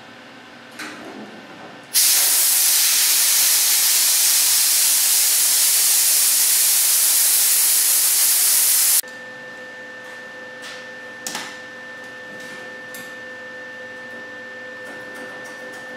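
Compressed air from a hand blow gun hissing in one steady blast of about seven seconds, starting and stopping abruptly, played over a freshly made plug weld.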